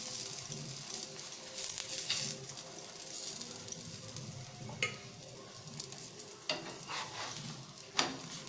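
Oil sizzling under a cheese-stuffed paratha shallow-frying in a non-stick pan. In the second half, a few sharp taps come from the spatula and brush knocking against the pan; the last, near the end, is the loudest.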